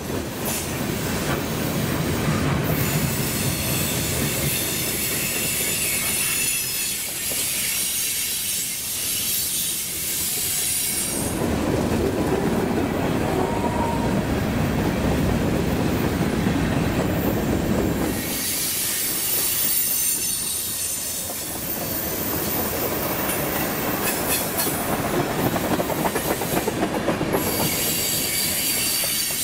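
Freight cars of a mixed manifest train (boxcars, covered hoppers and tank cars) rolling past on steel wheels: a steady rumble of wheels on rail. High-pitched wheel squeal comes through in the first few seconds and again near the end.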